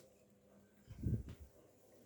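Daewoo DWD-FT1013 washing machine in a Cotton 40°C wash: wet laundry swishes once in the turning drum, a low surge about a second in, between quieter stretches.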